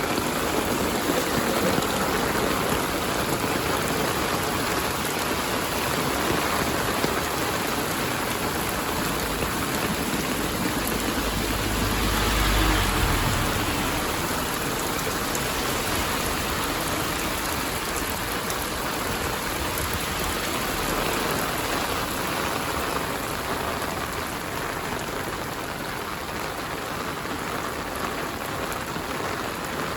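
Heavy rain falling steadily. A low rumble swells and fades about halfway through.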